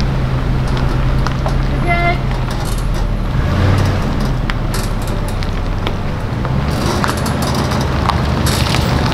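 Tow vehicle's engine running with a steady low hum while it moves the travel trailer, with scattered clicks and knocks throughout. A short high-pitched tone comes about two seconds in.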